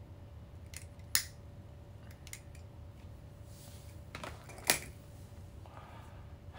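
Two sharp clicks, about a second in and again near five seconds, with a few fainter ticks between, over a faint steady room hum.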